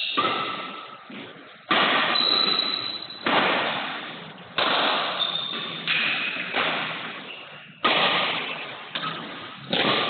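Badminton racket strikes on a shuttlecock during a doubles rally: about nine sharp hits, roughly one every second or so, each ringing out in the echo of a large hall.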